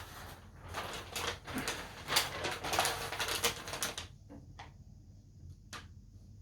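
Handling noise from packaging: rustling and crinkling for about four seconds, then a few light clicks and taps.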